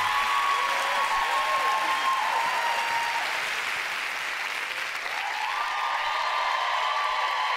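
Studio audience applauding steadily, with a few high held tones over the clapping.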